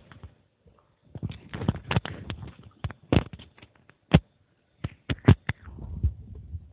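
Stomach gurgling after drinking water: clusters of quick pops and gurgles, the loudest near the middle, settling into a low rumble near the end.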